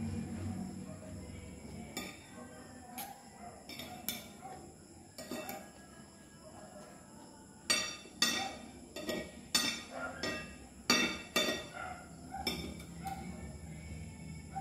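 Cutlery clinking against a plate while eating: a few light clicks, then a quick run of about seven sharper clinks a little past the middle.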